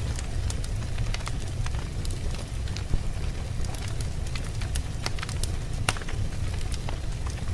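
Wood fire burning in a fireplace: a steady low rumble of flames with constant sharp crackles, and a couple of louder pops about three and six seconds in.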